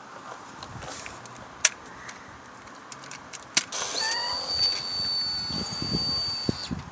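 2005 Kawasaki ZX6R 636 that will not crank: two sharp clicks about two seconds apart as the starter is pressed, with no cranking, then a steady high-pitched electrical whine for nearly three seconds that cuts off sharply.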